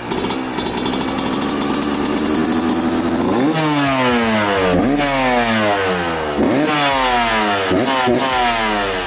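2022 Yamaha YZ125's 125cc two-stroke single-cylinder engine running just after its first kick-start: a steady fast idle slowly rising in pitch, then about three and a half seconds in a string of about five throttle blips, each rev climbing sharply and falling back.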